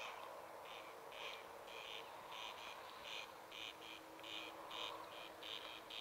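Insects chirping in short, uneven high bursts, two or three a second, with a faint steady hum underneath.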